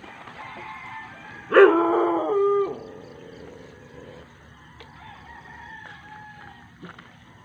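A rooster crowing once, loud and close, about a second and a half in, the call sweeping up and holding for about a second before breaking off. Fainter crowing follows in the background.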